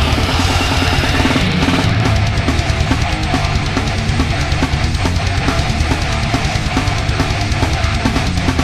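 Brutal death metal recording: heavy guitars, bass and a drum kit playing a fast, driving riff.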